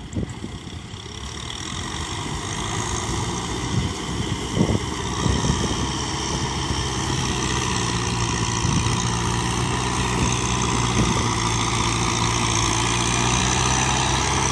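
Kubota M6040SU tractor's diesel engine running steadily as the tractor works through a flooded paddy, growing louder as it comes closer. A couple of brief thumps around the middle.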